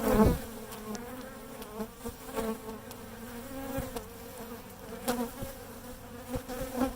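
A mass of honeybees buzzing in a steady hum from an open hive box, with a few sharp knocks of wooden hive frames being shifted, the loudest right at the start and another about five seconds in.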